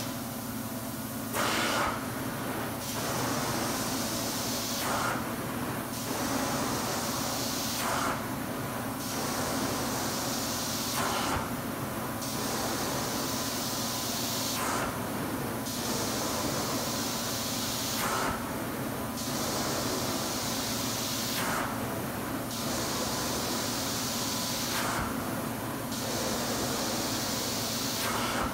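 Carpet-cleaning extraction wand on hot-water extraction, hissing with suction and water spray over a steady low hum. The hiss drops away and surges back about every three seconds as the wand is stroked across the carpet.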